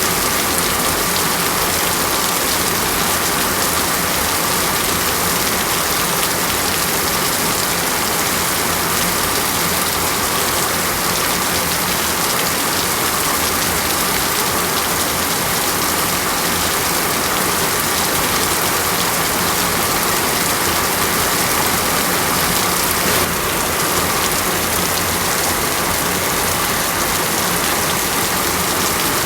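Steady heavy rain, an even dense hiss of falling drops.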